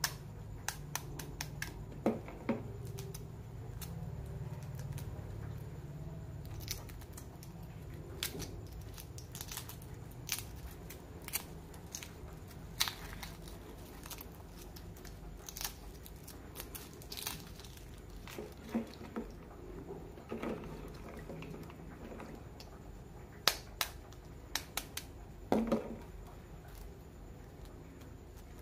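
Shells of hard-boiled eggs cracking and being picked off by hand: irregular small crackling clicks, with a few louder cracks late on.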